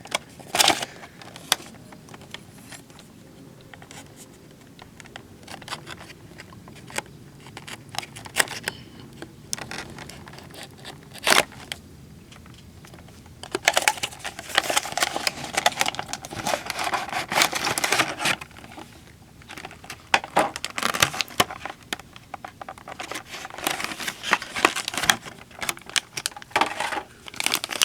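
Toy packaging being handled and opened: scattered clicks and knocks at first, then long stretches of dense crinkling and tearing from about halfway through.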